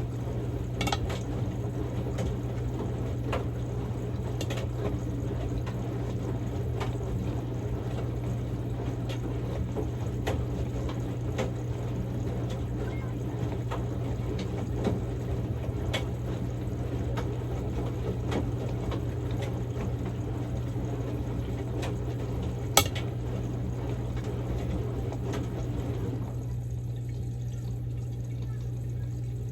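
Samsung Grande washing machine on its quick-wash course, washing a padded jacket: a steady motor hum under water sloshing in the drum, with scattered light clicks and one sharper click a little before the end. Near the end the sloshing drops away while the hum carries on.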